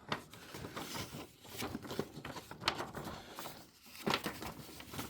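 Paper rustling and crinkling in irregular bursts as a printed instruction sheet is handled and turned over.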